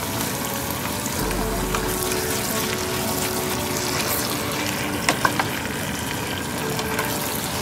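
Chicken pieces sizzling in a stockpot with tomatoes, onion and ginger as they are stirred and turned with a wooden spoon. Two short knocks about five seconds in.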